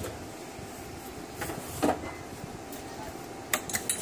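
The front cover of an Inverex Axpert 5kW VP solar inverter being lifted off and handled: a few short knocks and clacks, the loudest about two seconds in and a quick cluster near the end.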